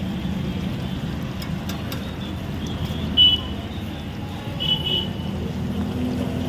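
Steady low street rumble, with two short high-pitched beeps about three and five seconds in.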